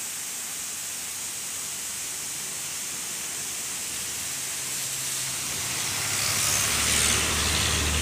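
Steady rush of water from a waterfall and the stream cascading over rocks below it. It grows louder and fuller about six seconds in, with a low rumble coming in underneath.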